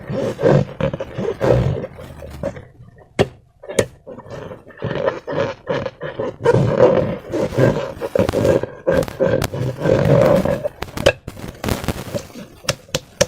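Rubber balloons filled with slime being squeezed and rubbed by hand: rubber squeaking and slime squelching, with a quieter stretch about three seconds in and several sharp snaps near the end.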